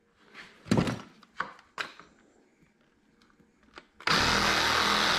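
Cordless DeWalt reciprocating saw with a fine-tooth metal blade starts about four seconds in, running steadily as it cuts through a plastic deer ear liner. A few scattered knocks and clicks come before it.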